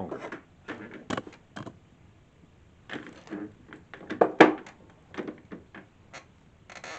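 Scattered metallic clicks and clunks of steel bolts and hand tools being handled at a motorcycle engine's oil pump, the loudest clunk about four seconds in, with a brief scrape near the end.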